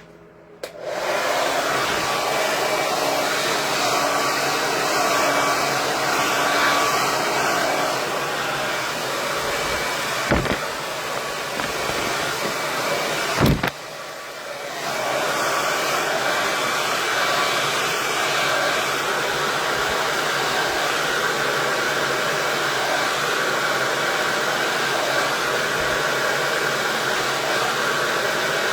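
KISS 1875-watt Pro Tourmaline Ceramic hair dryer switched on under a second in and blowing steadily. Two sharp knocks come around ten and thirteen seconds in, and the level drops briefly after the second one before the blowing picks back up.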